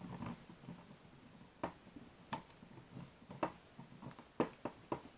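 Scattered sharp clicks and light taps, about six over a few seconds, from the plastic casing and screws of a tape measure being handled while it is taken apart.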